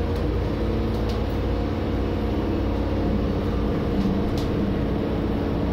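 JR Hokkaido H100 diesel-electric railcar moving at low speed, heard from inside the car: a steady drone of the engine and traction motors with a few faint clicks.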